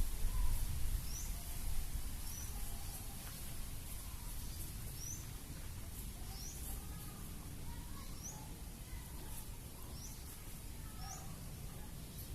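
A small bird repeating a short, high, upward-flicking chirp about every second or so, with fainter bird calls lower in pitch. Underneath runs a low wind rumble on the microphone, strongest in the first two seconds.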